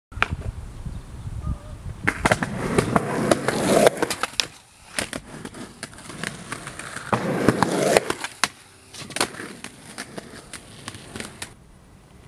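Skateboard rolling on a concrete sidewalk and grinding along a low metal flat bar twice, each grind about two seconds long, with sharp clacks of the board popping and landing.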